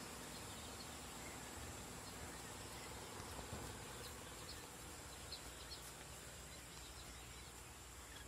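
Faint, scattered high peeps from a brood of Japanese quail chicks, clustered a few seconds in, over a steady background hiss.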